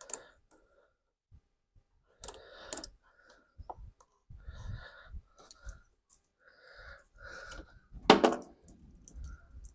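Scattered clicks and clinks of hand tools and hose clamps being handled while a riding mower's fuel filter is swapped, with one louder, short pitched sound about eight seconds in.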